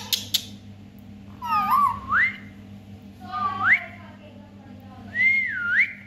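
Rose-ringed parakeet whistling three short rising phrases, the last one dipping and rising again. Two sharp clicks come right at the start.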